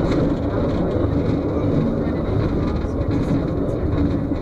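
Soudan Mine's elevator cage travelling in the shaft: a steady, loud, low rumble of running machinery and car noise.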